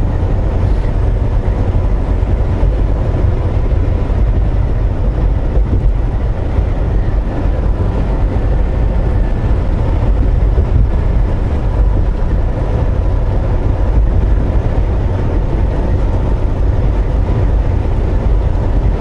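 Steady low drone of a Volvo VNL860 semi truck's engine and road noise inside the cab, with no change in pace.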